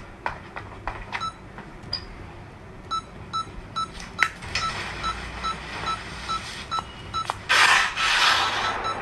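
Electronic beeping of a hospital heart monitor, short even beeps about two and a half a second, starting about three seconds in, among scattered knocks and rustles. Near the end a loud rushing burst of noise lasts about a second.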